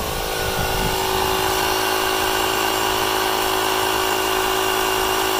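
Ryobi 18V cordless tyre inflator running steadily, its electric motor and pump giving a constant, even hum as it pumps up a truck tyre.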